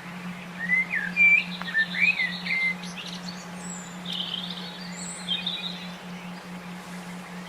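Songbirds calling: curving whistled notes in the first few seconds, then buzzy chattering phrases and a few thin high notes, over a steady low hum.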